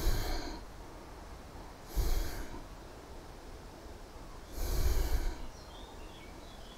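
A man sniffing whisky from a tasting glass held at his nose: three sniffs about two seconds apart, the third one longer.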